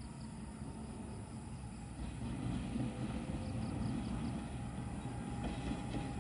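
Diesel locomotive approaching on the track, its engine making a low, steady rumble that grows louder about two seconds in.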